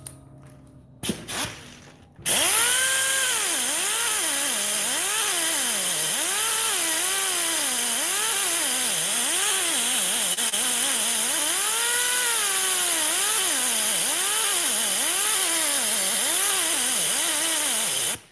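Pneumatic die grinder with a flap wheel sanding down a lumpy aluminum weld: a hiss of air with a whine whose pitch sags and recovers again and again as the wheel is pressed onto the metal and eased off. It starts about two seconds in, after a couple of short knocks, and shuts off just before the end.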